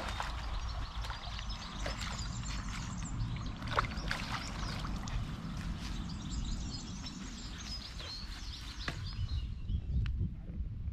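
Hooked trout splashing and thrashing at the pond's surface as it is reeled in to the bank, over a steady rumble of wind on the microphone.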